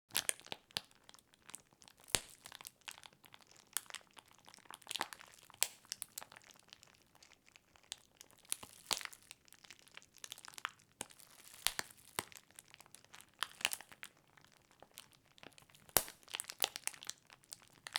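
Foley fire effect: a crinkly material scrunched and crumpled in the hands, giving a dense, irregular crackle with sharp clicks and pops that imitates a burning fire.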